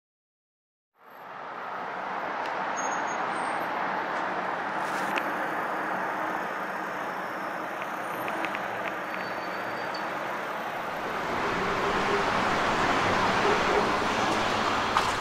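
Street traffic noise: a steady hiss of passing road traffic, rising slightly in the last few seconds, with a sharp click near the end.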